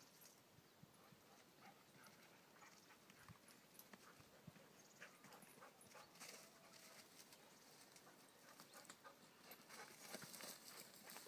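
Near silence with faint, scattered footsteps crunching on a stony dirt track, busier near the end.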